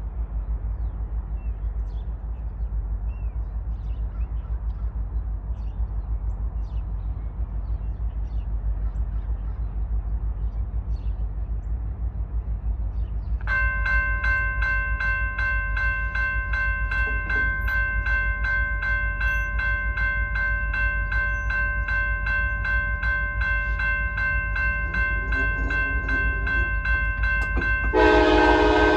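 A steady low rumble, then about halfway through a railroad crossing signal bell starts ringing in a rapid, even ding. Near the end the approaching lead Norfolk Southern locomotive's horn sounds a loud blast, after fainter horn sounds just before.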